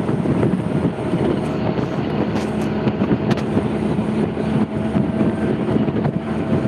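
An engine running steadily: a low, even hum over a continuous rushing noise.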